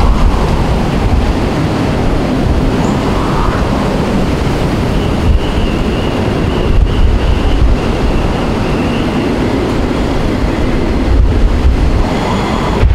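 Hurricane-force eyewall wind blowing without letup, with a low rumble of wind buffeting the microphone. A faint high whistle comes in for a few seconds midway.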